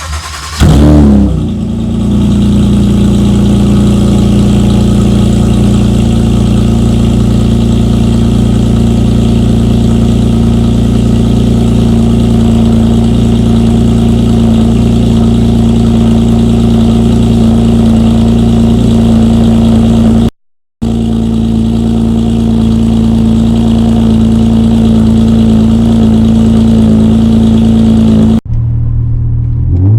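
Honda Accord V6 engine, fitted with catless precat-delete downpipes, starting up: it catches and flares about a second in, then settles into a loud, steady idle. The sound cuts out briefly around two-thirds through and changes, dropping in level, near the end.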